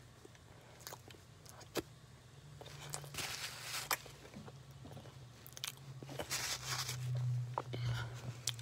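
Crunchy snack being bitten and chewed close to the microphone: scattered crisp crunches, thickening into two spells of steady chewing, about three seconds in and again from about six seconds.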